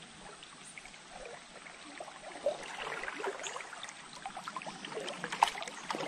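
Water splashing and trickling lightly around a small boat on a river, with scattered small clicks and plops that grow louder toward the end.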